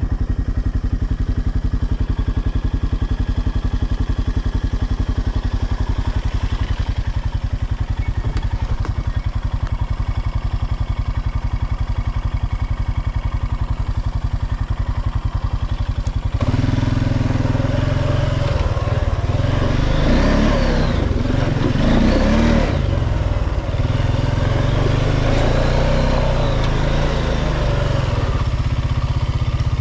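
Honda ATV engine running at a low, steady idle-like pace. About halfway through it gets suddenly louder as the four-wheeler is driven off, with the engine note rising and falling as the throttle changes.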